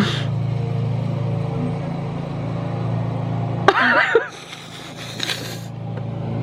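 Steady low drone of a vehicle engine running, which cuts off abruptly about three and a half seconds in. A brief wavering high-pitched sound with a sharp click at its start follows.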